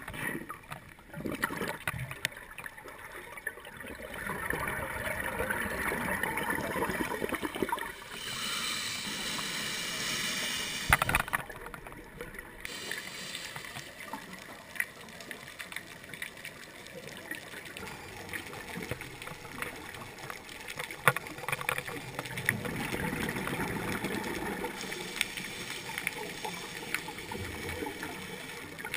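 Muffled underwater sound through a camera housing: scuba regulator exhaust bubbles gurgling and rushing in surges that swell and fade. There are a couple of sharp knocks, one about eleven seconds in and one near twenty-one seconds.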